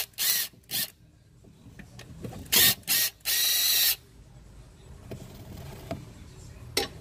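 Cordless power tool on a socket, run in short trigger bursts to loosen the 13 mm bolts of the CV axle bracket. Several bursts come in the first four seconds, the last almost a second long, and one brief burst comes near the end.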